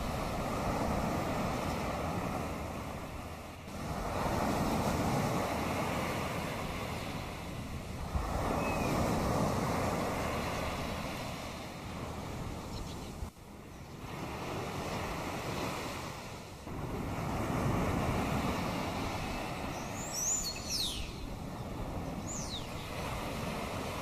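Sea waves washing ashore in slow surges that swell and ebb every four or five seconds. Near the end a bird gives a few quick, falling chirps.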